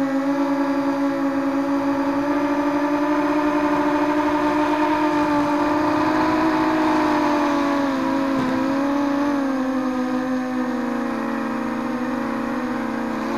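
ZMR250 racing quadcopter's Lumenier 2206 brushless motors and propellers humming in flight, heard up close from the quad's onboard camera. The pitch wavers with the throttle and dips about eight seconds in.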